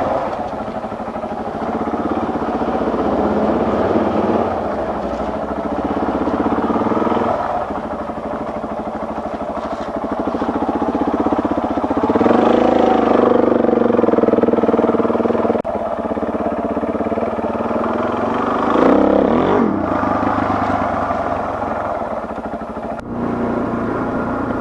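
Dual-sport motorcycle engine running under way, heard from the bike itself, its pitch rising and dropping several times as the rider works the throttle and gears on a dirt road.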